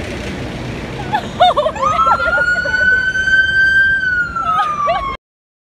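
Police car siren sounding as patrol SUVs pass, over street and engine noise: a few quick short whoops, then one long wail that rises slowly for about two seconds and then falls. The sound cuts off suddenly about five seconds in.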